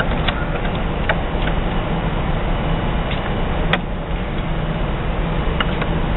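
Light metal clicks and taps from penny press parts being handled and set in place, with one sharper knock just under four seconds in, over a steady low hum.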